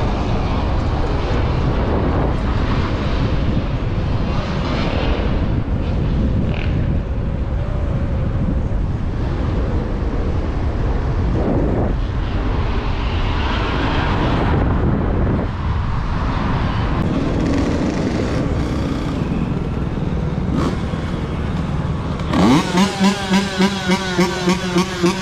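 Steady rumble of wind and city traffic on a moving microphone. Near the end, a dirt bike's engine revs up sharply and is held high, its sound pulsing rapidly on and off.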